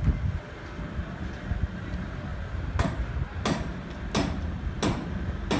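Steady hammering: five sharp strikes about two-thirds of a second apart, starting nearly three seconds in, over a low steady rumble.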